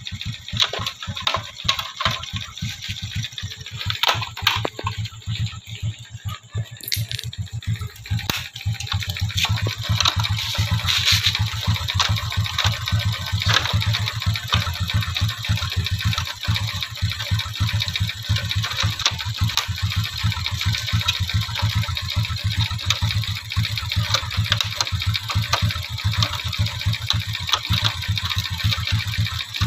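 Honda XRM 125's air-cooled single-cylinder four-stroke engine idling steadily, a rapid even ticking over a low hum, getting louder about eight seconds in.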